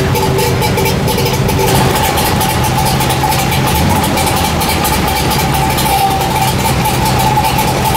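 Melkus RS 1000's 992 cc three-cylinder two-stroke engine, an uprated Wartburg unit, idling steadily with the typical two-stroke sound.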